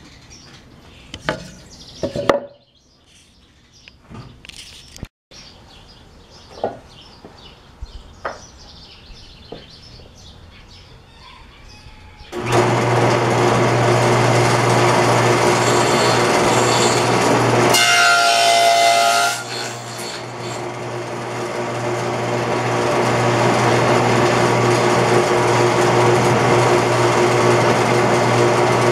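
Knocks and clicks of wood being handled and set against the fence, then a table saw with a dado blade starts about twelve seconds in and runs steadily. A few seconds later its sound dips and changes for about a second and a half as it cuts a finger-joint notch in the board.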